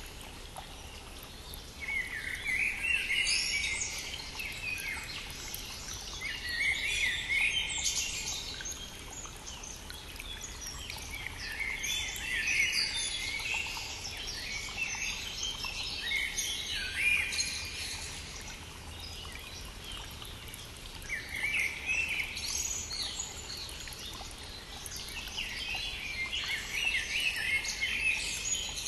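A songbird singing short song phrases about every four to five seconds, six in all, over the steady rush of a flowing stream.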